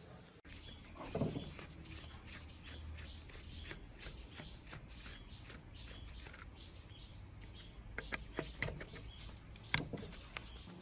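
Scattered clicks and light taps of hand-work on metal parts, with a heavier knock about a second in and a run of sharper taps near the end.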